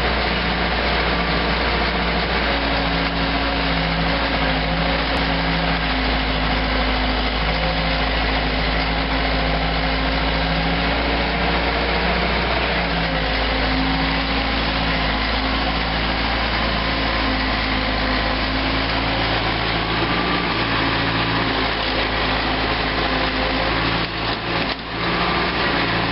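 Diesel engine of an old Caterpillar tracked excavator running steadily, a loud, even drone, with a brief dip about 24 seconds in.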